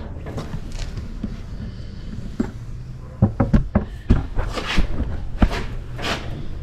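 Metal hardware being handled at an outboard motor's transom mount: scattered clicks and knocks, with a quick cluster of sharp knocks about three to four seconds in, then a few brief scraping hisses.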